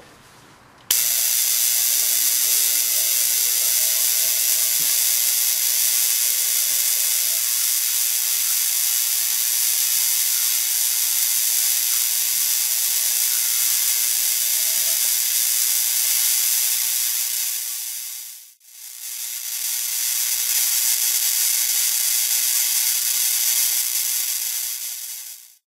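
Steady hiss of a high-voltage discharge setup running: an evacuated tube with magnet electrodes, glowing purple. The hiss switches on abruptly about a second in, drops out briefly near the three-quarter mark and cuts off suddenly at the end.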